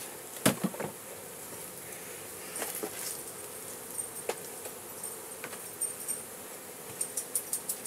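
Honey bees from a freshly split, disturbed hive buzzing in a steady hum. A few sharp clicks and knocks come through it, loudest about half a second in and in a cluster near the end.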